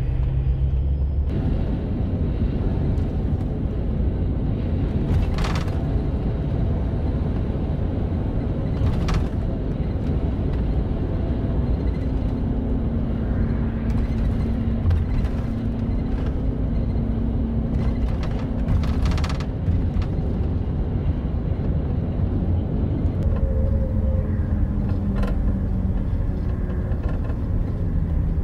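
Steady low rumble of a double-decker highway coach on the move, engine and road noise heard from inside the cabin. A few brief clicks or rattles stand out, and a faint steady hum comes in partway through.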